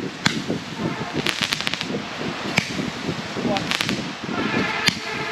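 Fireworks crackling and popping in quick, irregular sharp cracks, with people's voices underneath. About four seconds in a steady pitched sound joins them and holds to the end.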